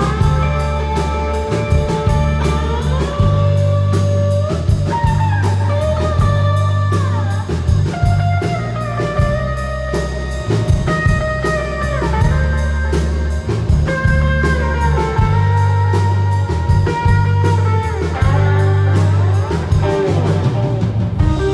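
Rock band playing live in an instrumental passage with no singing. An electric guitar plays a lead line with slides up and down over a steady bass and a drum kit with cymbals.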